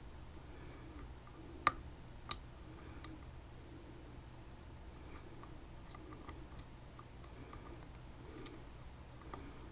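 Lock picking in a Chinese BiLock-copy padlock: scattered small metallic clicks and ticks from the pick and tension tool working inside the lock. One sharper click comes about one and a half seconds in, followed by a few fainter ones.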